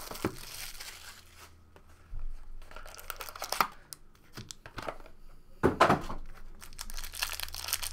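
Packaging of a trading-card box being torn open and crinkled by hand, in several short tearing and rustling spells with sharp clicks between them.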